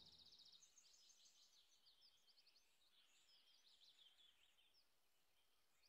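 Near silence, with a faint outdoor background of high chirps and fast trills, like birds and insects.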